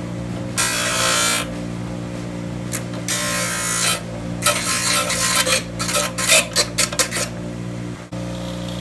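Hand-filing the edges of an iPhone 5S: two long strokes, then a run of quick short strokes. A steady low hum runs underneath.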